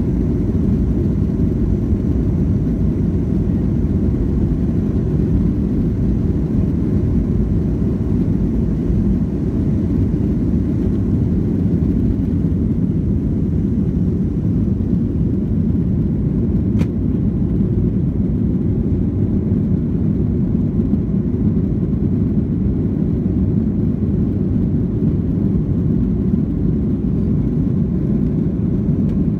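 Cabin noise of a Boeing 737-300 at takeoff power: a steady, deep roar from its CFM56 jet engines and the rushing air, carrying on from the takeoff roll into the climb. The higher hiss thins out a little before halfway, and a single click comes just over halfway through.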